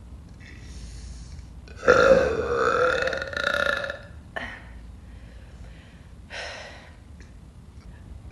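A woman's long, loud deliberate burp lasting about two seconds, starting about two seconds in, its pitch wavering up and down.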